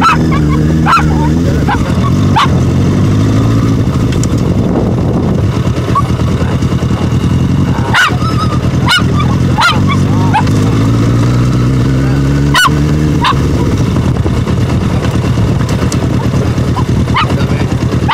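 Motorcycle engine running with a low, steady drone whose pitch rises about ten seconds in as it revs up. Several short, sharp barks from a poodle cut through it.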